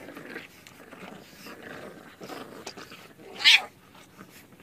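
A pet animal vocalising: a run of softer sounds, then one short, loud cry about three and a half seconds in.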